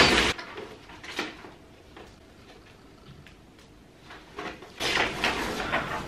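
Bubble wrap and plastic packaging rustling and crackling as a printer is unwrapped: a short loud burst of crinkling at the start, a click about a second in, a quiet stretch, then steady rustling again from about five seconds in.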